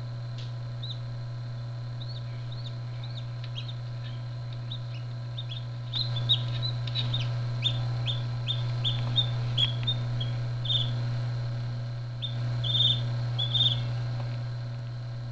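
Hatching chick peeping: a run of short, high peeps, each falling in pitch, sparse at first and louder and closer together from about six seconds in, fading out near the end. A steady low hum runs underneath.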